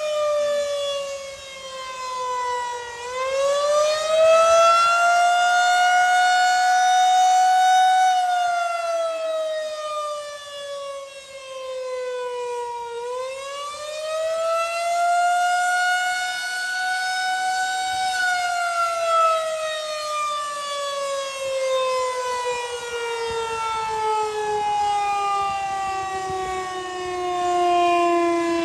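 Outdoor tornado warning siren wailing, its pitch rising and falling slowly, about ten seconds to each cycle, then sliding steadily lower over the last ten seconds as it winds down.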